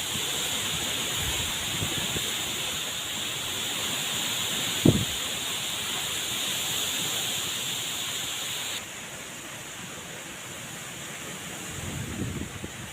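Heavy rain falling in a steady hiss, with one short, loud thump about five seconds in. The hiss drops suddenly about two-thirds of the way through, and a few soft, low thuds come near the end.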